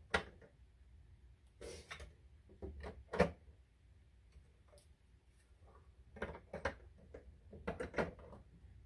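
Hard plastic clicks and knocks as black egg-turner rails are handled and set into the yellow plastic tray of a Brinsea Ovation 56 incubator. The loudest knock comes about three seconds in, with a run of lighter clicks near the end.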